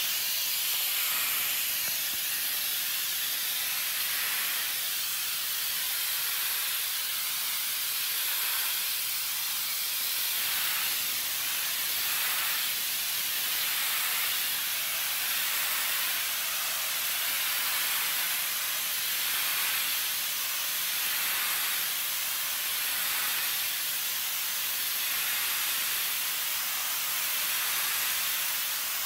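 Pressure washer spray jet blasting mud off a concrete patio: a steady, loud hiss that swells and eases every couple of seconds as the wand sweeps across the surface.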